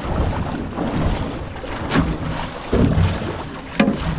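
Wind buffeting the microphone and water slapping against a small fishing boat's hull, with a couple of sharp knocks, one about two seconds in and one near the end.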